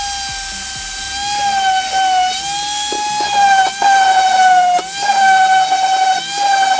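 High-speed power tool running with a steady high-pitched whine, its pitch sagging briefly as it bears on the work, with a few short scrapes or knocks.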